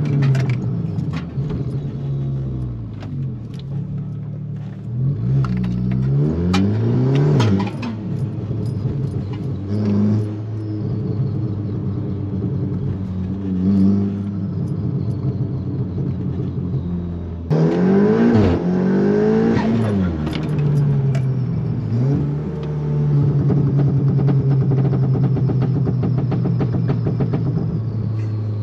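Audi S3 8V's turbocharged 2.0-litre four-cylinder revving up and falling back repeatedly through the gears while being driven, with exhaust pops and crackles on lift-off and downshifts from a remapped ECU. The owner finds the crackle on the downshift still a bit too loud and too long.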